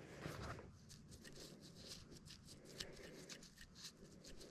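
Faint rustling and scratching of dry leaves and soil as a handheld pinpointer probe is worked along the ground, with many small irregular ticks.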